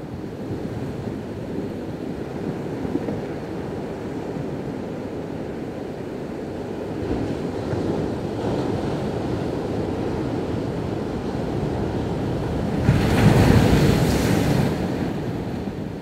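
Surf breaking and washing up a cobble beach in a steady rushing wash, with a louder surge of breaking water about thirteen seconds in that lasts under two seconds.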